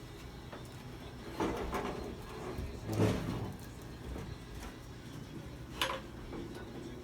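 Knocks and scrapes of a steel pickup fender being handled and set into place on the truck, the loudest knock about three seconds in, with a short sharp click near the end.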